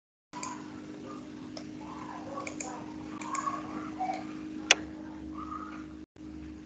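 Microphone room tone with a steady low hum, starting from dead silence a moment in, with faint scattered small noises and a single sharp click about two thirds of the way through; the sound drops out for an instant near the end.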